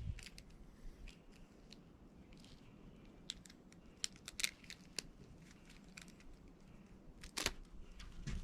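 Scattered small clicks, rustles and crinkles as a coil of window-screen spline and its plastic packaging are handled, with a louder crinkling cluster about seven seconds in.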